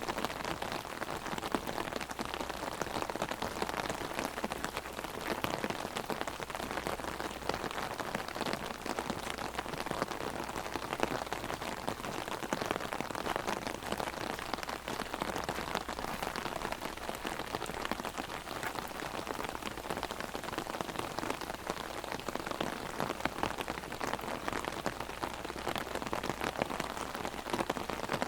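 Heavy rain drumming on an umbrella overhead: a dense, steady patter of drops.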